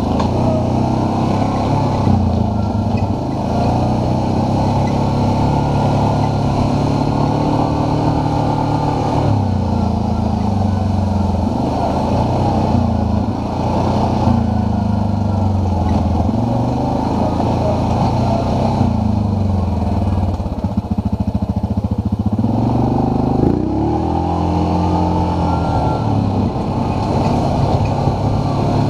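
ATV engine running while riding along a dirt trail, its pitch rising and falling with the throttle. There is a brief rev up and back down a little past three-quarters of the way through.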